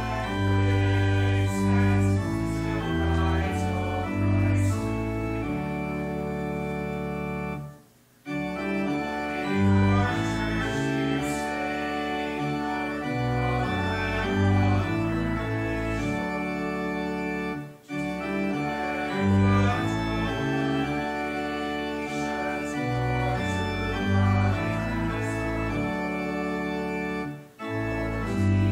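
Church organ playing a hymn in sustained chords that change every second or so, with a short break about every ten seconds between lines of the hymn.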